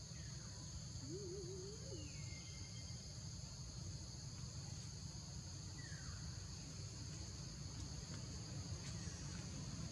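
Tropical forest ambience: a steady, high insect drone with a low rumble underneath. There is a short wavering call about a second in and a few faint, falling bird-like whistles.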